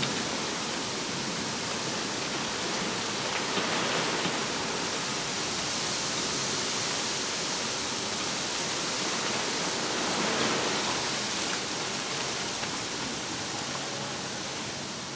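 Steady thunderstorm rain falling, an even hiss with a few faint ticks, swelling slightly now and then.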